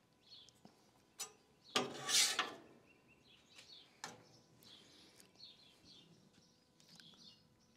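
Metal spatula scraping across the Weber Slate griddle top while scooping egg filling onto tortillas: a few light clicks and one loud scrape about two seconds in. Birds chirp faintly in the background through the second half.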